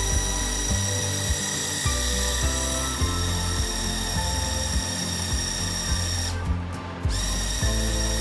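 A flying fidget spinner drone's tiny motors whine steadily at high pitch while the drone spins in place under a fingertip, over background music with a steady beat. The whine cuts out for under a second about six and a half seconds in.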